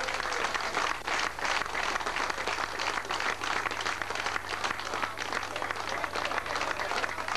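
A small crowd applauding, steady clapping throughout, over a faint low hum.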